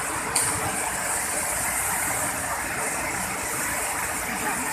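Waterfall rushing: a steady, even roar of falling water, its hiss brightening suddenly about a third of a second in.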